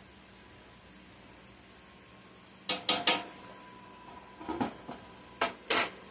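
Metal fork and pan lid clanking against a cast-iron skillet as the lid is set on and the fork laid down. The sharp clanks come in three short groups, starting about three seconds in, after a quiet start.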